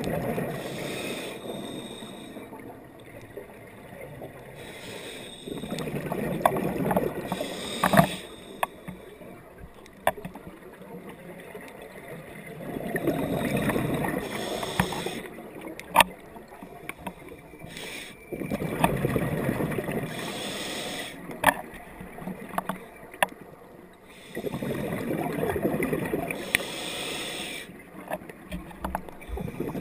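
A scuba diver breathing through a regulator underwater: exhaled bubbles rumble out in bursts of two to three seconds about every six seconds, with quieter inhalation between. A few sharp clicks stand out over the breathing.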